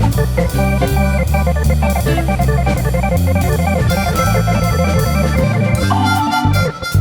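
Background music led by an organ over a steady drum beat; about six seconds in the arrangement changes.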